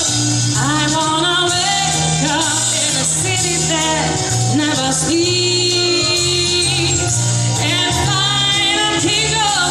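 A woman singing a melody into a microphone over amplified backing music with a steady bass line.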